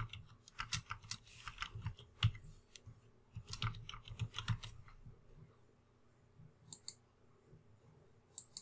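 Typing on a computer keyboard, a quick irregular run of keystrokes for about five seconds. Later come two separate clicks, from a computer mouse.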